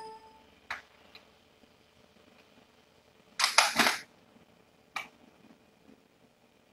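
Quiet background broken by a few sharp clicks, one near the start and one about five seconds in, and a louder half-second clattering burst about three and a half seconds in.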